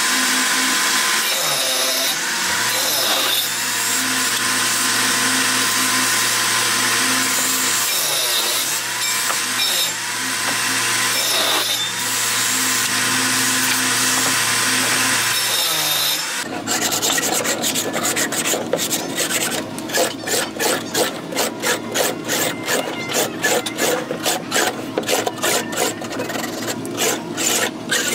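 An electric motor-driven sanding drum running with a steady hum while the wooden clock body is pressed against it, the wood hissing against the abrasive. About 16 seconds in, the motor stops and it gives way to rhythmic hand strokes rubbing across the wooden clock face, about two a second.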